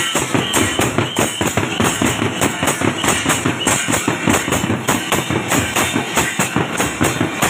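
Band drums beating a fast, steady rhythm of several strokes a second.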